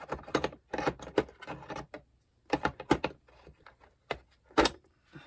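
Metal bike hand tools clicking and clinking together as they are lifted out of and handled in the kit, a string of irregular sharp knocks and rattles.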